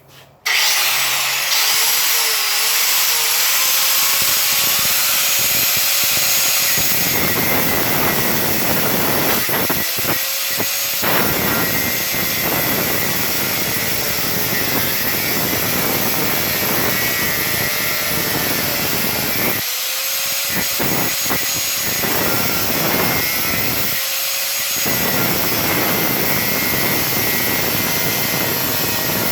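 Electric angle grinder switched on about half a second in and running steadily, grinding metal to cut out rivets on a bus wall panel. Its high motor whine dips and recovers in pitch as the disc bears on the metal, and the grinding noise drops out briefly a few times as the disc is lifted off.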